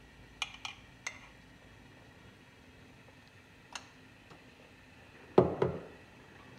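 A few light clinks of glass spice jars and a metal spoon, then a louder clattering knock about five and a half seconds in as a spoon goes into the aluminium pressure cooker.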